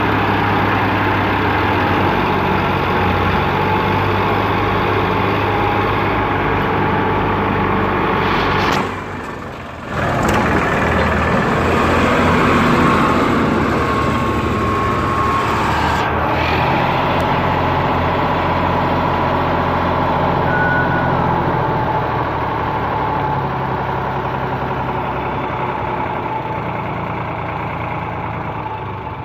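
Diesel tractor engines running steadily, working the hydraulic lift that tips loaded soil trailers. The sound drops out briefly about nine seconds in.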